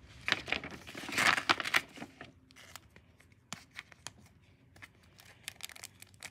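Rustling and crinkling of a folded paper mailer and a plastic card holder and sleeve being handled. The noise is busiest in the first two seconds, then thins to light scattered crinkles and clicks as fingers pick at the holder's edge.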